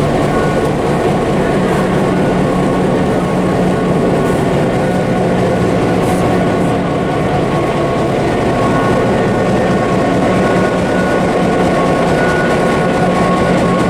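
Diesel train locomotive running steadily: a loud, even drone with a low hum and a faint high whine that comes and goes.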